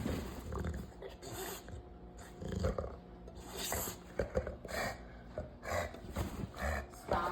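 American Bully dog making a series of short, irregular breathy noises, roughly one or two a second.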